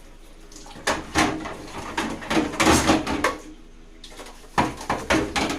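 Kitchen things being handled: a run of knocks, clinks and clatters, busiest in the middle, then a few more near the end.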